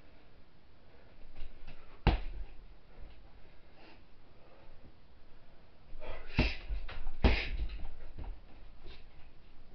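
Strikes landing on a hanging heavy punching bag: one hard thud about two seconds in, then two more about a second apart near the six-to-seven-second mark.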